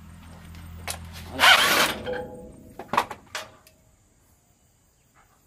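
Metal tool handling: a spanner and bolts being worked on a truck's fuel-tank mounting bracket, with one loud scrape about one and a half seconds in and a few sharp metallic knocks around three seconds. A low background hum stops at about the same moment as the scrape.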